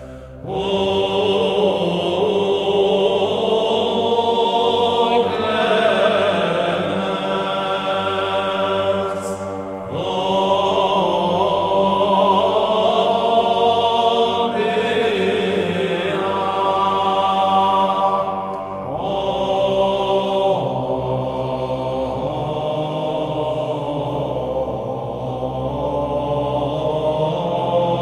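Chanted vocal music: sustained, slowly moving sung notes in three long phrases, with new phrases beginning about ten and nineteen seconds in.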